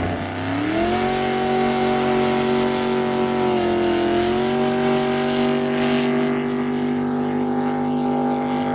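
A powerful engine revs up over the first second, then holds steady at high revs, dipping briefly around the middle before settling again.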